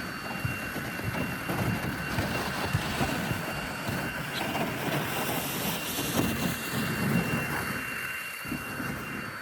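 A motor running steadily, a constant drone with a thin high whine over a rough low rumble.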